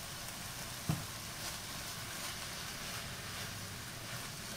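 Shredded chicken and tomato sauce sizzling gently in a frying pan while being stirred with a silicone spatula: a steady hiss with faint scraping, and one light knock about a second in.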